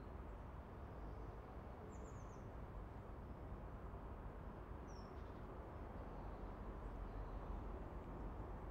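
Faint outdoor ambience: a steady low background rumble with two short, high bird chirps about two and five seconds in.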